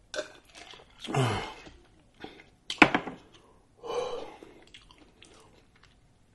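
A man drinking from a cup, then letting out loud breathy exhales, one falling in pitch about a second in and another about four seconds in. A sharp knock just under three seconds in is the cup being set down on the table.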